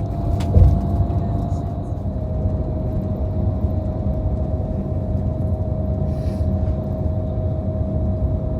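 Steady running noise inside a moving vehicle: a low rumble with a constant thin whine over it, and a single thump about half a second in.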